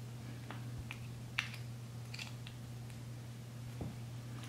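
A few faint small clicks as a CR2032 coin-cell battery is handled and pressed into the battery holder of an opened C7 Corvette key fob, the sharpest click about one and a half seconds in, over a steady low hum.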